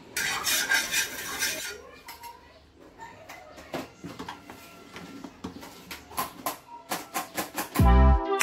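A steel spoon worked across a flat dosa tawa with a brief loud hiss, then scattered light clinks of steel utensils and bowls. Background music with a heavy beat comes in near the end.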